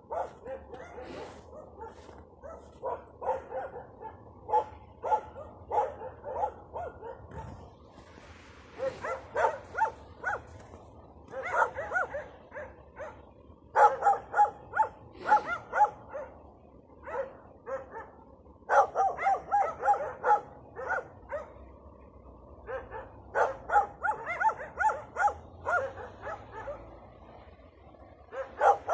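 Stray dogs of a pack barking territorially, in bouts of rapid, repeated barks broken by pauses of a second or two.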